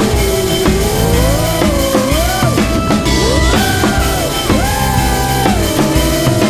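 Background music: a drum-kit beat under a lead melody that slides up and down in pitch.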